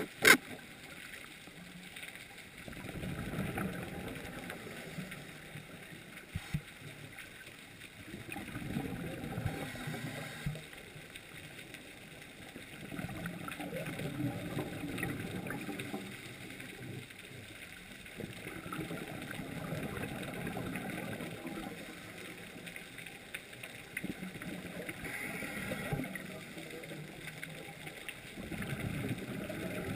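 Scuba diver's exhaled bubbles from the regulator, heard underwater: slow, repeated bubbling bursts of two to three seconds each, about every five seconds, with one sharp click just at the start.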